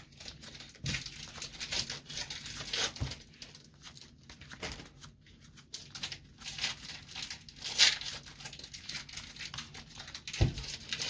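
Kaldheim draft booster pack wrappers being crinkled and torn open in irregular rustles, with a few soft knocks as packs and cards are handled.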